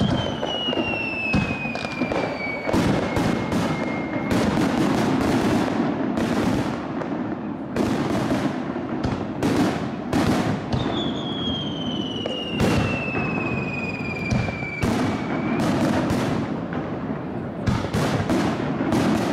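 Rapid-fire barrage of aerial firework shells bursting, many sharp bangs in quick succession. Two long whistles slide down in pitch, one over the first few seconds and another starting about eleven seconds in.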